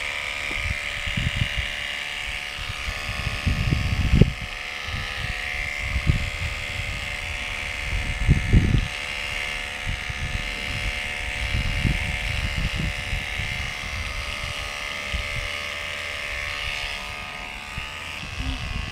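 Electric horse clippers running with a steady hum as they trim hair on the horse's poll for a bridle path. A few low bumps come through, loudest about four and eight seconds in.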